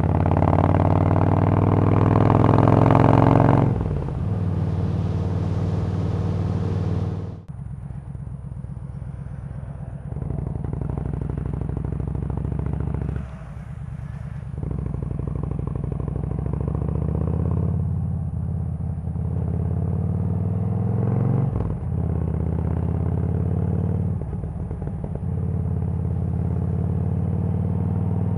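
Yamaha V-Star 1300's V-twin engine heard from the rider's seat. At first there is heavy wind rush over the engine. The wind fades as the bike slows in the first quarter, and the engine drops low again near the middle. It then pulls away, the engine note rising in runs broken by short dips at the gear changes.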